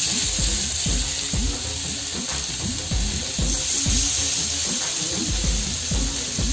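Marinated fish steaks sizzling steadily in hot mustard oil on a tawa, under background music with a steady beat.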